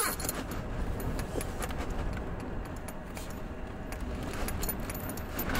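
Wind buffeting a tent: a steady low rumble with light rustling and ticking of the fabric.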